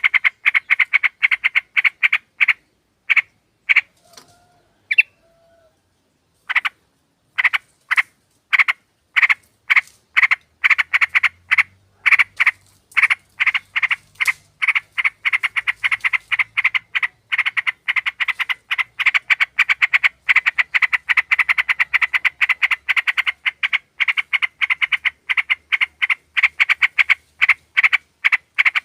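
Yellow-vented bulbuls (trucukan) calling in a rapid, rhythmic run of short, sharp notes, several a second. The run breaks off for about three seconds a few seconds in, then goes on, growing denser.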